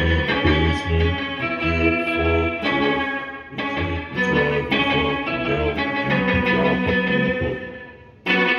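Fender Pawn Shop Mustang electric guitar played through a Meris Enzo synth pedal and a Boogie amp: held chords and notes with a pulsing low tone beneath. The sound fades away near the end, and a new chord is struck sharply just before the end.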